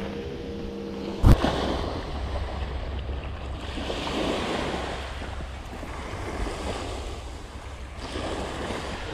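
Small waves breaking and washing up on a beach, with wind rumbling on the microphone; a single sharp knock about a second in.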